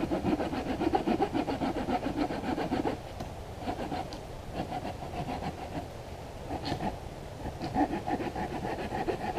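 Handsaw cutting through a log with quick, even back-and-forth strokes. The strokes come in three runs, with short pauses about three and six and a half seconds in.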